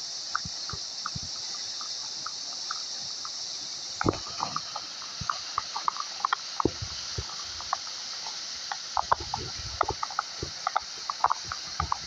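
Waterfall rushing as a steady hiss, with many irregular small clicks and a few low knocks on top.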